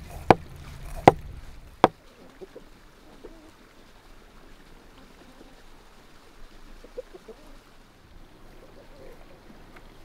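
A large knife chopping through whole fish onto a wooden cutting board, three sharp knocks in the first two seconds. After that come only faint knife taps and handling sounds on the board.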